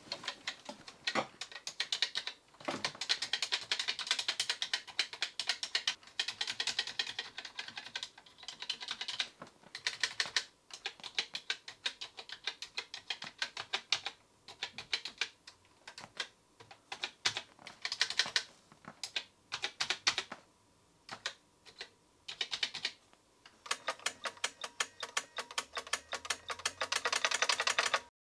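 Keys of a Canon L163 nixie-tube calculator clacking as numbers are typed in, in runs of fast clicks with short pauses between them.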